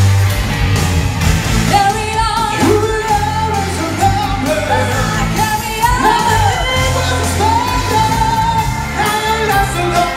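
Live pop-rock band playing, with electric guitar, bass, drums and keyboard, and a sung vocal line coming in about two seconds in.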